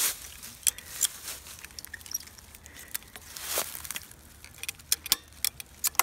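Ratchet strap being cranked under load to pull chain-link fence fabric tight, its ratchet giving irregular metallic clicks that come closer together near the end.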